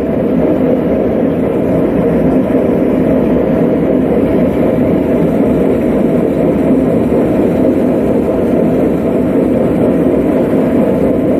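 Chaffoteaux et Maury gas water heater running after being lit with the water open: a steady, even rush from the burner flame and the flowing water.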